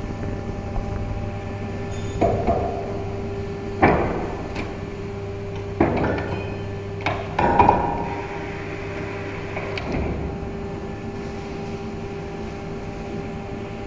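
PVC rain boot injection moulding machine running with a steady hum, broken by about six clunks and knocks in the first ten seconds, the loudest about four seconds in and around eight seconds in.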